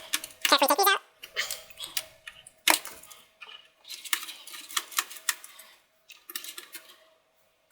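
Light, irregular clicks and clatter of small hand tools and screwdriver bits being handled on a workbench, with one sharper click a little under three seconds in. A faint steady hum runs underneath.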